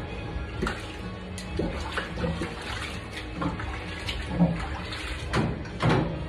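Water sloshing and splashing in a stainless-steel sink as bar glasses are washed and dipped, with a series of short knocks of glassware, the loudest near the end. Music plays in the background.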